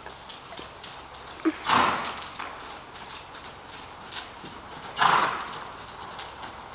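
Paint mare's hooves trotting on soft arena sand: soft, regular hoofbeats. Two louder short bursts of noise come about two seconds in and again about five seconds in.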